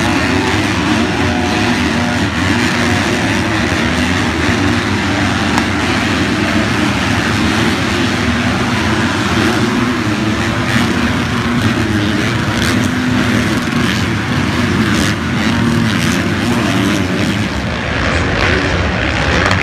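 Motocross bikes racing on a dirt track, their engines revving up and down as riders go past and over the jumps. A few short knocks come in the second half.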